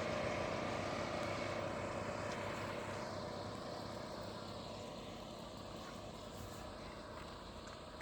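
A motor vehicle's engine running steadily and fading as it moves away down the road.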